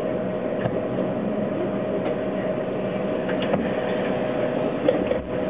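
Toronto streetcar heard from the front of its cab while moving slowly in traffic: a steady electric motor hum with a constant whine, with a few light clicks and rattles from the car body.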